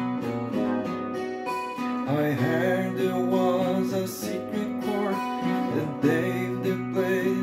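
Yamaha FG-TA TransAcoustic steel-string acoustic guitar playing a slow accompaniment, with a man's singing voice joining about two seconds in.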